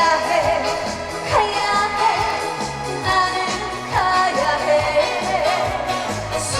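Trot song played loud over a stage sound system: a full backing track under a lead melody line that slides down in pitch several times.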